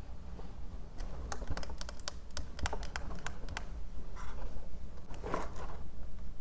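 Fingers and nails handling a plastic epilator body: a quick run of light clicks and taps for a couple of seconds, followed by two soft rubbing rustles.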